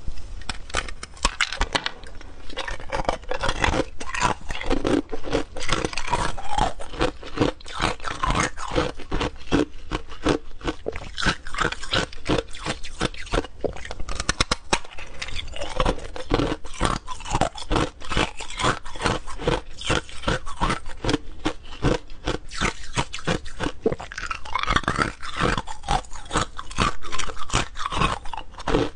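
Hard ice being bitten and chewed: a dense, irregular run of sharp cracks and crunches, several a second.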